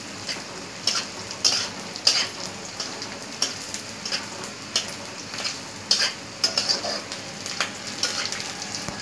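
Onions and chillies sizzling in hot oil in a wok while being stirred, the utensil scraping and clicking against the pan in irregular strokes.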